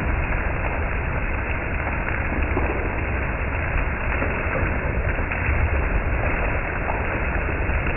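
Summer thunderstorm wind buffeting the microphone: a steady rushing noise with a heavy low rumble.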